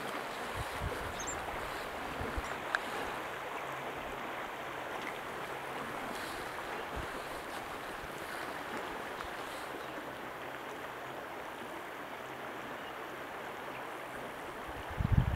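Steady rush of river water flowing past the bank, with a few low thumps near the end.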